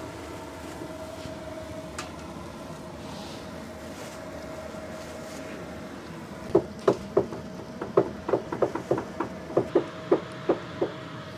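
Steady hum of a stove's blower fan. In the second half it is joined by a quick, irregular run of sharp metallic clinks and knocks against a stainless-steel basin as fish and a ladle are handled in it.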